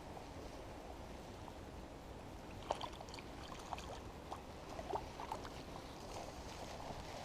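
Steady wash of rain and river water, with scattered small clicks and ticks from about three seconds in.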